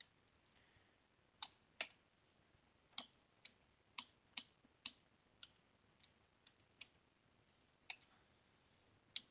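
Computer keyboard being typed on: about fifteen separate, sharp key clicks at an uneven pace, with pauses of up to a second between some of them.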